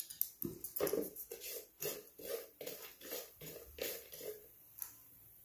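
Wooden spatula stirring dry-roasting peanuts, cumin seeds and coconut in a flat pan: short scraping and rattling strokes, about four a second, stopping a little after four seconds.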